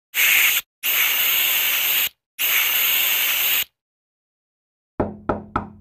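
Three bursts of loud radio-style static that switch on and off abruptly, then, after a short silence, four quick sharp electronic hits that each die away.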